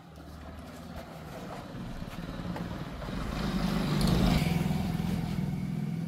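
A motor vehicle drives past, its engine growing louder to a peak about four seconds in and then fading.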